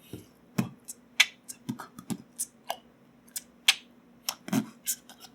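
Mechanical keyboard keys being pressed one at a time: about a dozen sharp clicks at irregular spacing over a faint steady hum.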